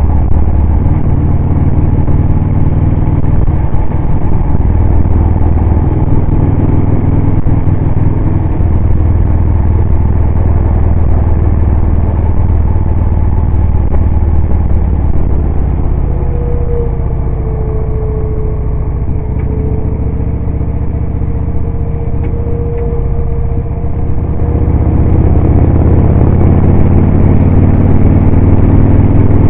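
Motorcycle engine running at road speed with wind noise. A few seconds past the middle the engine eases off under a steady whine, then it pulls harder again near the end.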